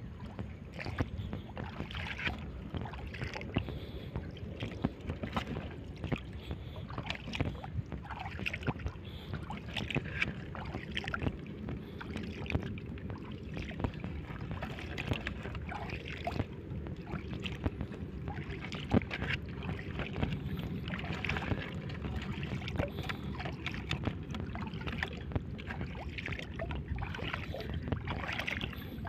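Shallow seawater splashing and sloshing around someone wading through it: a continuous, irregular patter of small splashes at a steady level.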